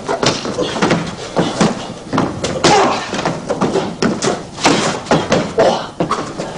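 Quick irregular thuds and slaps of two men grappling and striking, several a second: bodies colliding, hands on cloth and feet stamping and scuffing on a padded training mat.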